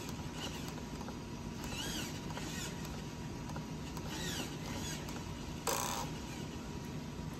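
Spektrum A6380 high-torque, high-speed digital aileron servos whirring in several short rising-and-falling whines as they move and jitter. The shaking comes from the servos drawing more current than the receiver's power supply can deliver. A short rustling bump about six seconds in.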